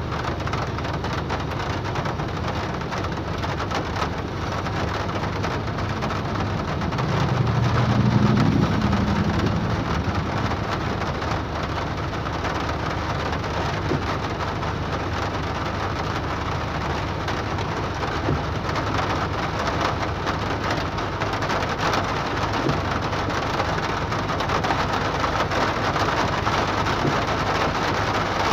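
Hard rain beating steadily on a car's windshield and roof, heard from inside the car. A low rumble swells and fades at about eight to ten seconds in.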